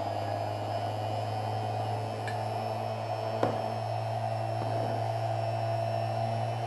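Small electric grinder running free at steady speed: an even low hum with a higher whine over it, and a faint click about three and a half seconds in.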